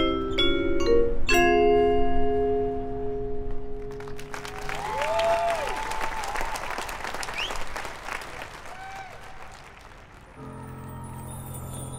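Marching band front-ensemble mallets (marimba and vibraphone) play quick struck notes and ring out on a held chord about a second and a half in. From about four seconds the stadium audience applauds, with a few whoops. Near the end a soft low held chord from the band comes in, with chimes above it.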